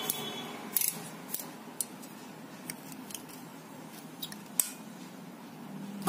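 Scattered sharp plastic clicks and knocks, about eight of them, as a vacuum cleaner's extension rod is handled and fitted to the hose handle. The loudest come about a second in and again near the end.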